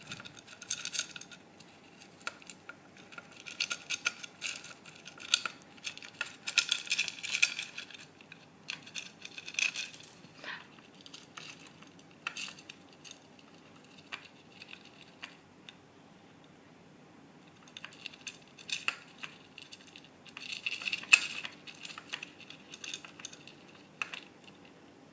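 A dwarf hamster digging in its food bowl and pushing dry food out of it: irregular bursts of small clicks and rattles of food against the bowl, with a quieter spell a little past the middle.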